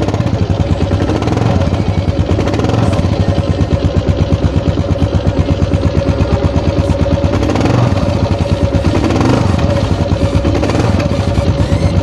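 2018 Kawasaki KLR 650's single-cylinder engine idling with a loud, pulsing beat, given a little throttle a couple of times so that the beat quickens and smooths out for a moment, about two seconds in and again around eight seconds in.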